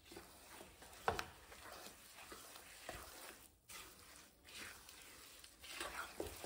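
A spatula stirring and scraping roasted gram flour (besan) with chopped nuts and raisins around a steel kadhai: a soft, continuous scraping with a few light knocks of the spatula against the pan, the sharpest about a second in.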